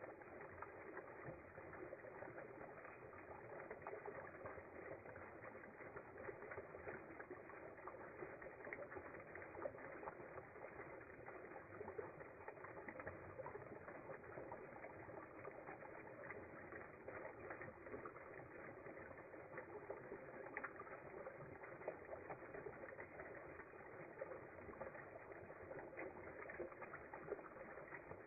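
Shallow spring water trickling over rocks and leaf litter, a faint, steady babble.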